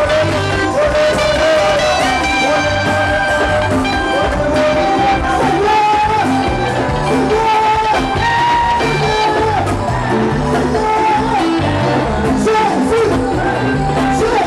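Live gospel band playing: a lead vocal sung over electric keyboard, bass and drums, loud and steady.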